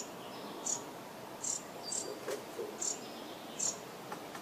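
Short, high-pitched chirps repeating about every 0.7 s over a steady background hiss.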